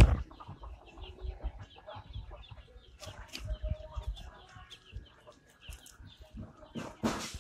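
A flock of ayam kampung super chickens (Indonesian native-type chickens) giving many short, overlapping calls. A loud, brief rustling noise comes right at the start and again about seven seconds in.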